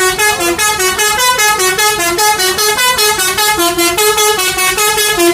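Basuri telolet bus horn, a multi-tone musical air horn, playing a fast tune of short notes that jump up and down in pitch.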